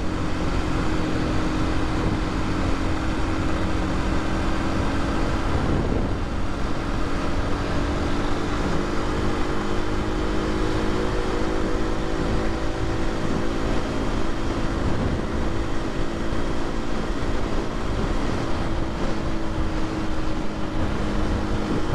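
Aprilia RS 125's single-cylinder four-stroke engine running steadily under way, its pitch creeping up a little midway, over a low rumble of wind and road.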